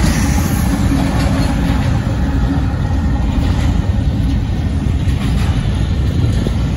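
Freight train passing close by: a mid-train Union Pacific diesel locomotive running past, then double-stack intermodal container cars rolling on the rails. A steady engine tone in the first couple of seconds gives way to a continuous, loud rumble.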